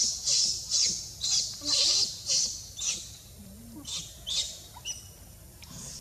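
Baby macaque giving repeated high-pitched squealing cries, about two a second, then thinning to a few scattered cries about halfway through: a hungry infant crying for milk.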